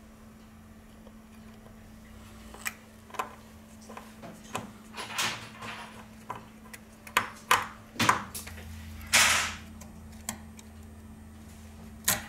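Small metal tools, tweezers and a precision screwdriver, clicking and tapping against the metal housing and internal brackets of an iPhone 6, with a couple of short scraping sounds as parts are handled.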